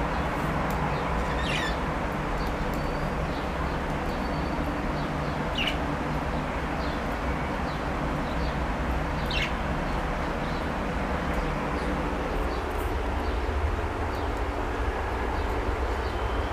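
Budgerigars chirping in short, scattered calls, with three sharper sweeping chirps among them. A steady low hum carries under them and is the loudest sound.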